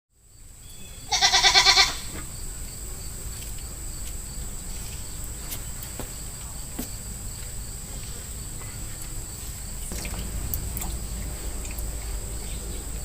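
A goat bleats once, about a second in: one short, loud, high-pitched call. After it there is a low, steady farmyard background with a faint high-pitched whine and a few soft clicks.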